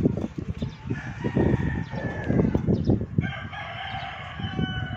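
A rooster crowing: a shorter call about a second in, then one long, held crow near the end, over a choppy low rumble.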